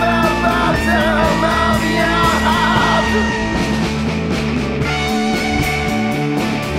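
Punk rock song: a rock band playing with a sung vocal line that ends about halfway through, the band carrying on alone after it.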